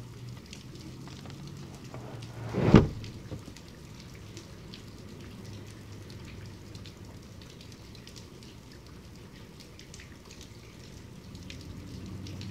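Steady medium-to-heavy rain, with many separate drops hitting close by. A single loud, short thump about two and a half seconds in.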